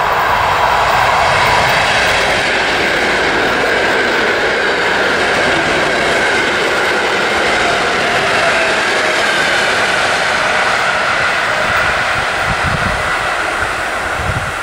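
An EN57 electric multiple unit passing at speed: a steady rumble of wheels on rail, with a whine that slowly falls in pitch. It eases off a little near the end, with a few low thumps.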